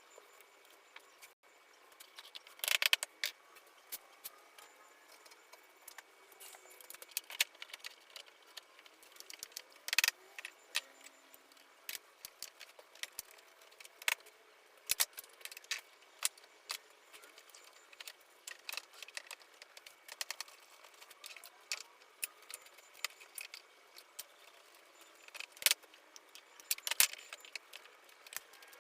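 Sped-up workshop sounds of a wooden shutter being fitted together: scattered sharp clicks and clattering knocks of wood pieces and tools, bunched into brief busy flurries a few times.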